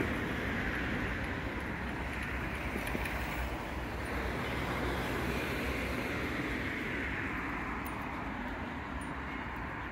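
Passing road traffic: a steady rush of tyres and engines that swells and eases as vehicles go by, growing a little quieter near the end.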